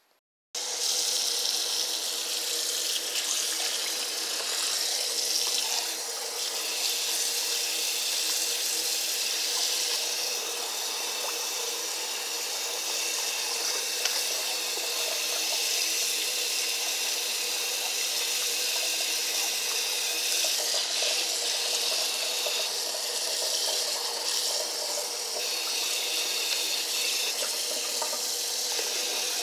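Kitchen tap running into a plastic basin of water while hands rinse raw chicken pieces: a steady rush of water that starts about half a second in.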